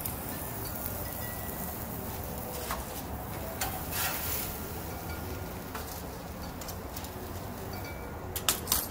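Metal grill tongs clinking against the gas grill's grates and a metal tray, a few scattered clinks mid-way and a sharp cluster of loud clinks near the end, over a steady low background rumble.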